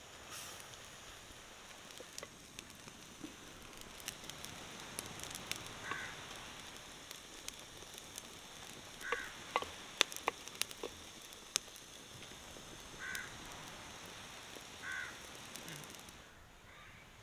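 Squid chilly bubbling and sizzling in a clay pot over a wood fire, with many sharp crackles and pops. A crow caws several times over it.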